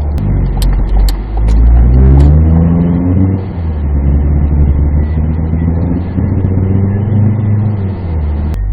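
2016 Ford Focus with a DPS6 dual-clutch transmission accelerating, its engine pitch rising twice over a heavy low rumble, with a few sharp clicks near the start. The rumble is the grinding and strong vibration on acceleration that the car is shown for.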